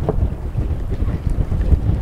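Wind buffeting the microphone: a gusty, uneven low rumble.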